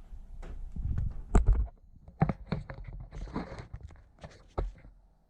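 Irregular knocks, clicks and rustles of handling, the loudest knock about a second and a half in, as the camera is set up and things are shifted on the work surface.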